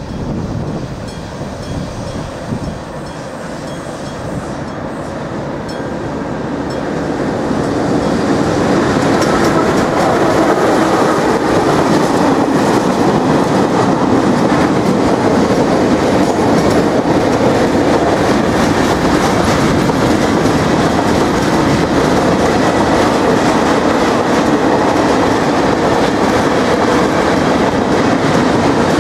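Freight train of car-carrier and timber-loaded wagons running past over a level crossing. The noise builds over the first several seconds and then holds loud and steady as the wagons roll by, with gusty wind on the microphone at first.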